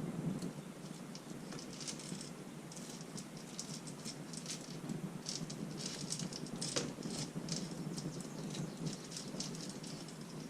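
Metal timing chain rattling and clicking in quick, irregular bursts as it is fed by hand up through an ATV engine's cam chain tunnel.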